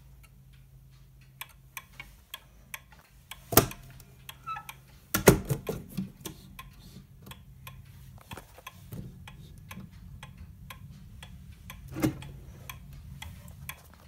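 Mechanical pendulum wall clock's brass movement ticking steadily, with a few louder knocks from the wooden case, one at about three and a half seconds, one at about five seconds and one near twelve seconds.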